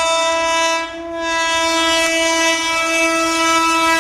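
WAG7 electric locomotive's horn sounding a long, steady blast as the train approaches, with a brief dip about a second in.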